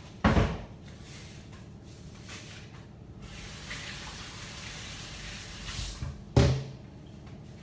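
Kitchen tap running for about three seconds in the middle, as hands are washed at the sink, with a bump just after the start and a louder knock near the end.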